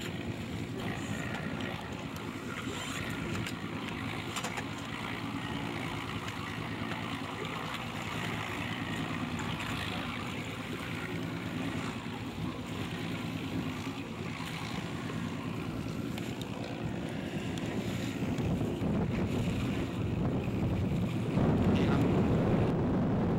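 Wind buffeting the microphone and water sloshing around an open bass boat, over a faint steady low hum. The noise grows louder near the end.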